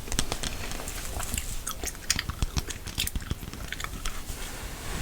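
Gum chewing close to the microphone: a run of irregular small clicks and smacks from the mouth.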